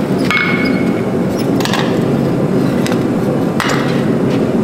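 A blacksmith's hammer strikes a red-hot hatchet blank on the anvil once, with a short metallic ring, followed by a few lighter knocks and clanks as the hammer is set down on the anvil and the blank is lifted in the tongs. A steady low roar runs underneath.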